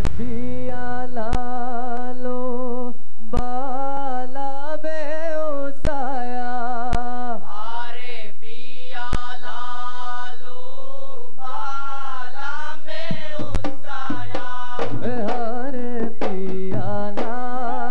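Boduberu performance: a lead singer's sung opening in long, held, wavering notes, marked by a few single sharp strikes. About thirteen seconds in, the big boduberu drums join with a denser beat under the voice.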